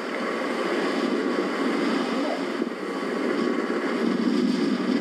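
Steady rushing wind noise on an outdoor microphone, with no distinct events.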